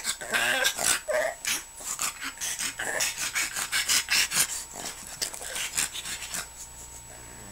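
Pug growling and yelping in a play-fight, snapping at a hand waved at its face. A quick run of short, rough sounds that dies down near the end.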